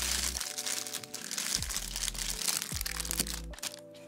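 Thin plastic bag crinkling as the camera wrapped in it is handled and lifted out of its box, over background music with deep bass notes. The crinkling stops about three and a half seconds in.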